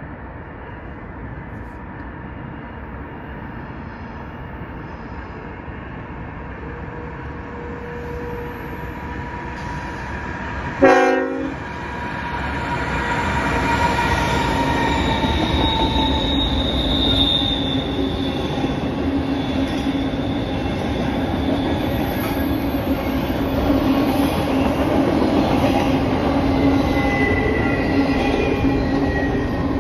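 CN diesel-hauled double-stack container freight train approaching and passing: the locomotives' rumble swells, a short horn blast about eleven seconds in is the loudest moment, then the steady roll of wheels over the rails as the stacked container cars pass, with thin wheel squeal on the curve.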